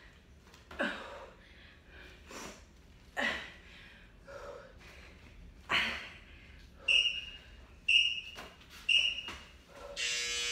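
A person breathing hard in short puffs while holding a plank. Then an interval timer sounds three short high beeps about a second apart, followed near the end by a long buzzing tone.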